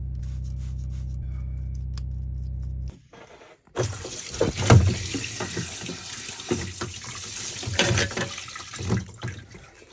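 A steady low hum that stops about three seconds in, then seawater gushing and splashing in through a boat's open through-hull transducer fitting as the paddlewheel speed transducer is pulled out and the hole is plugged, with several thumps from hands working the fitting.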